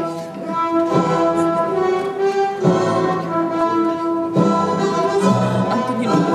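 Orchestral music with bowed strings and brass, held chords that change every second or two.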